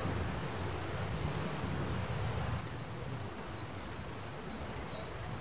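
Quiet outdoor background: a steady hiss with faint, high insect chirps repeating about twice a second from about halfway in.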